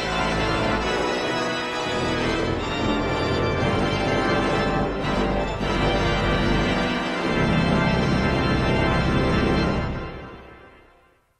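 Closing theme music of sustained, held chords, fading out to silence near the end.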